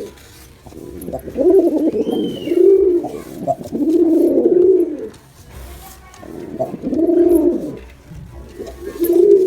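Male pigeon cooing: a string of low, arching coos, one after another, with a pause of about two seconds midway.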